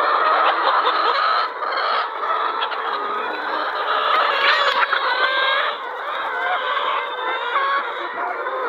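A large flock of poultry calling all at once: many overlapping calls forming a continuous din.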